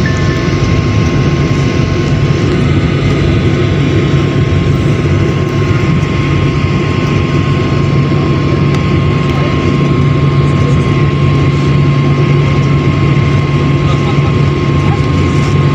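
Jet airliner cabin noise as the plane taxis after landing: the engines run at a steady idle-taxi hum, with a low drone and a thin steady whine over an even rush of air.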